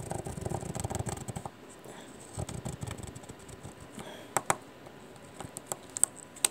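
Hot soldering iron tip scraping along a memory module's gold edge fingers, lifting them off as the heat softens their glue. A rapid gritty rasp fills the first second and a half, then softer scratching and a few sharp clicks.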